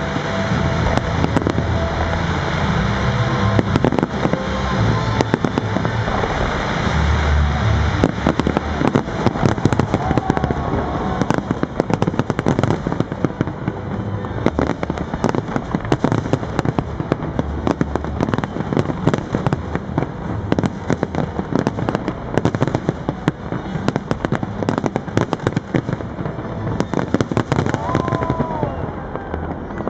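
Fireworks display: a continuous barrage of aerial shells bursting, a dense run of bangs and crackles with deep booms, heaviest in the first several seconds.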